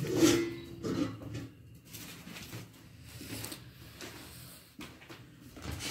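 Soft rustling and light knocks of hands at work in a small room, a handful of short irregular noises.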